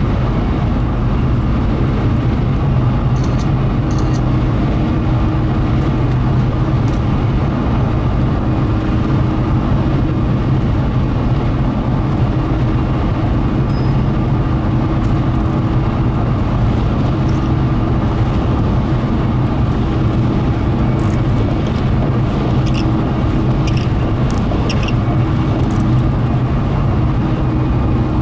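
Steady engine and road noise heard from inside a car driving on a highway, with a low hum, and a few light ticks scattered through it, clustered near the start and toward the end.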